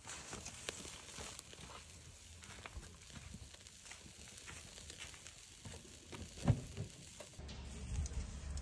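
Wood embers crackling faintly under a wire-mesh grill, with scattered small clicks and one low thump about six and a half seconds in.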